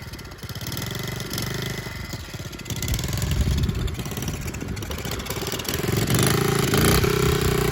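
Honda Z50 minibike's small single-cylinder four-stroke engine running just after being started, blipped with the throttle. It gets louder about three seconds in and again around six seconds in.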